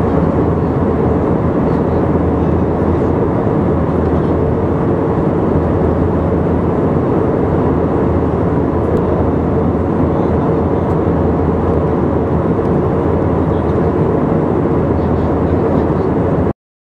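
Steady in-flight cabin noise of a passenger airplane: an even engine and airflow drone with a low hum, cutting off abruptly near the end.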